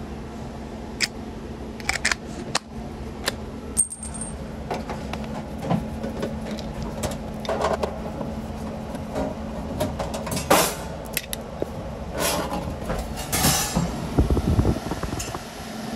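Steady low hum of a freezer's refrigeration unit running, under scattered clicks, knocks and rustling from the unit's cabinet being handled. The rustling and knocking are loudest about two-thirds of the way through and near the end.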